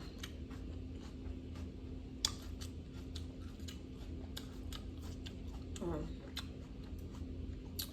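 Close-miked chewing of a crisp salad: scattered crunches and sharp mouth clicks, one louder about two seconds in, with a brief murmur of the voice about six seconds in.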